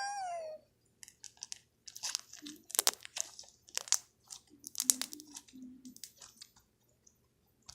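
Crunchy bead slime being squeezed and kneaded by hand: the beads give irregular crackling, popping crunches that come in clusters.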